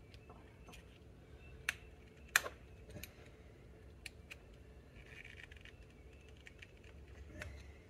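Small metal clicks and clinks as a gold-coloured aftermarket battery terminal clamp is handled, screwed together and fitted onto the battery post, with two sharper clicks about two seconds in.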